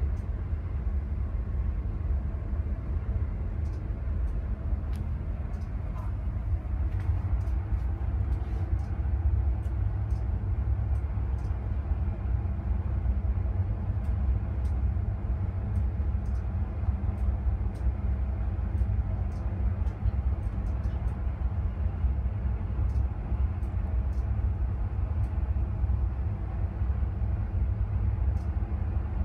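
Rescue helicopter hovering over a ship, heard as a steady low rumble with a constant hum.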